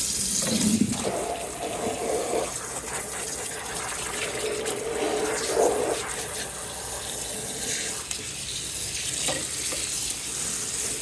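Cold water running from a tap into a sink, a steady rushing splash as the basin fills for rinsing.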